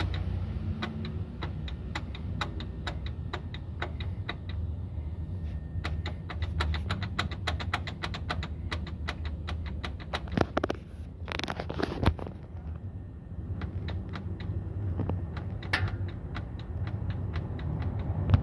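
Citroën C3 with its engine running in a steady low hum while a string of sharp clicks and knocks sounds, about two to three a second, with two brief scraping rattles a little past the middle: the suspension noise being chased on the car.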